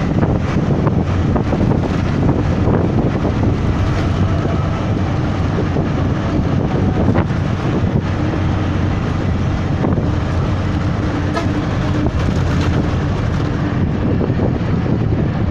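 Steady engine and road noise heard from inside a moving vehicle, with wind on the microphone from the open window.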